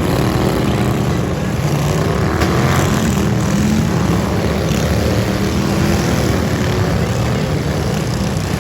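Lawn mower engines running and revving, their pitch rising and falling.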